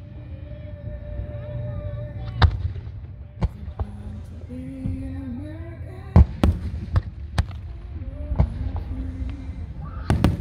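Aerial fireworks shells bursting in an irregular string of sharp bangs. Several come in quick succession about six to seven and a half seconds in, and a pair comes near the end.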